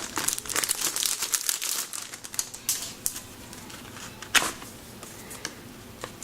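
Plastic packaging crinkling and rustling as it is opened by hand, dense at first and then thinning to sparse rustles, with one sharp click a little past the middle.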